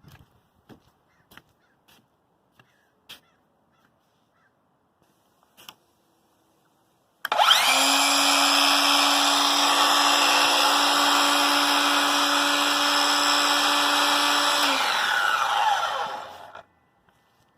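Craftsman 20V cordless miter saw motor, after a few light clicks, starting about seven seconds in. The blade spins up quickly, runs steadily at high speed for about seven seconds, then winds down with a falling pitch and stops.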